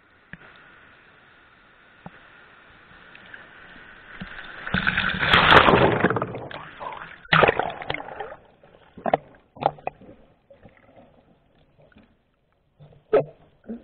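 Water rushing and splashing loudly for about two seconds, then a sharp knock and a few scattered smaller knocks and splashes.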